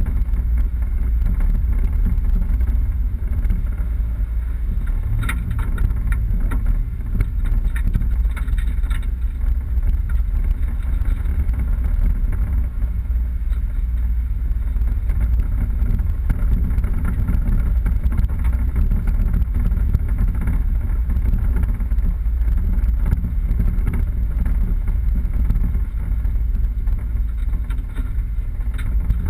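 A 4x4 vehicle driving off-road: a steady low rumble of engine and tyres over rough ground, with a run of knocks and rattles about five to nine seconds in.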